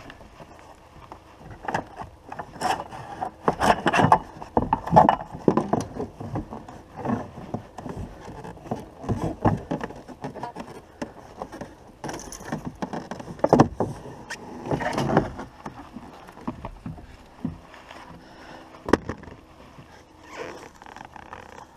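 Irregular knocks, thuds and scrapes on a boat's deck and hull as a freshly caught fish is landed and handled.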